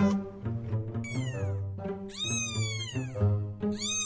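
A cat meowing: three long meows, each rising and then falling in pitch, about a second in, about two seconds in, and near the end, over background music.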